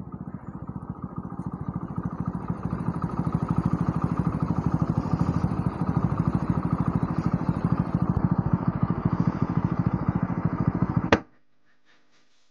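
Hero Splendor Plus motorcycle's single-cylinder four-stroke engine running with an even pulse. It cuts off abruptly with a click near the end.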